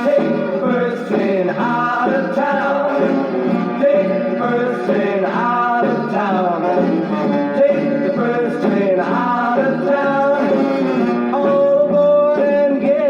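1950s rock and roll band recording played from a 78 rpm shellac record, the band playing steadily. The sound stops short of the highest treble.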